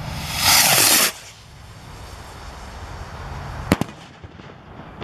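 Bright Star War Hawk consumer skyrocket launching with a loud hissing whoosh that lasts under a second and falls in pitch as it climbs away. About three and a half seconds in comes a single sharp bang as the rocket bursts overhead.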